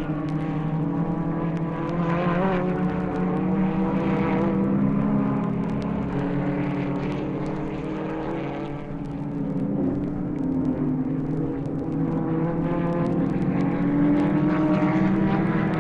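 Several Grand Prix racing car engines running together at high revs, their pitches holding steady and wavering slightly, fading a little about nine seconds in and then coming back up. The faint crackle of a vinyl record is audible.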